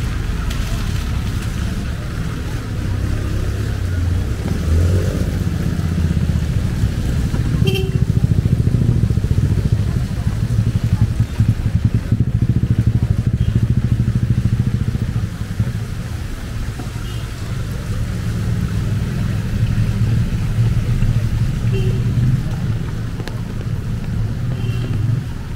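Street traffic in the rain: motorcycle and other vehicle engines rumbling past, loudest through the middle stretch and again near the end, over an even hiss of rain.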